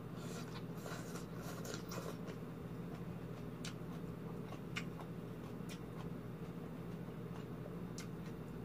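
A person eating green papaya salad: chewing and crunching mouth noises in the first couple of seconds, then scattered small clicks of chopsticks against the plate. A steady low hum runs underneath.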